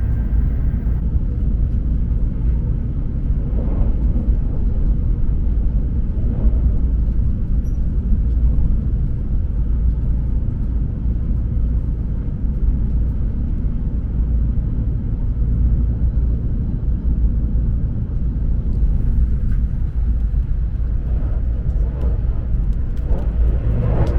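Hokuriku Shinkansen train running at speed, a steady low rumble heard inside the passenger car.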